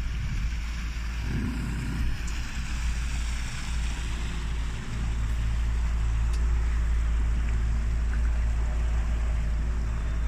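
A motorboat's engine running steadily while underway, with a rush of water and wind noise; it gets a little louder about halfway through.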